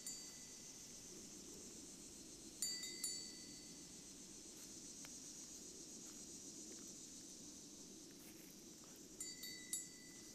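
Metal chimes ringing softly in a few clusters: one strike at the start, two about two and a half seconds in, and several near the end, each clear note ringing out for about a second. A faint steady high hiss lies underneath.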